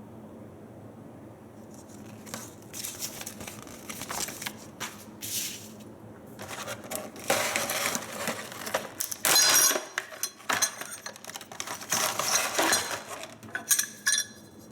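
Irregular clinking and rustling as the metal parts of a soundbar wall bracket and their packaging are handled, starting about two seconds in and busiest in the second half.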